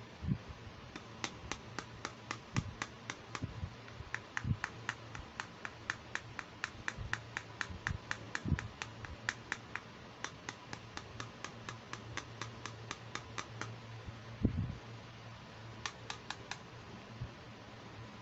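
Quick, evenly spaced light clicks on hard plastic, about four or five a second, from a small pink toy hair dryer being handled; they pause briefly twice and stop near the end, with a few low bumps of the toy being handled.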